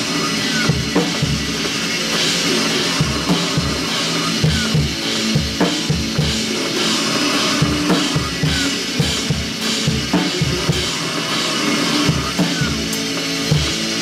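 Drum kit played live: frequent bass-drum hits, snare strikes and crashing cymbals over a sustained droning tone.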